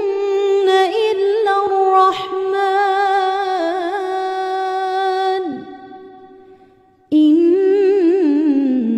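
Melodic Quran recitation: a single voice holds one long drawn-out note with a slight waver, which fades away about six seconds in. After a brief pause for breath, the voice comes back in with the next phrase, sliding down in pitch near the end.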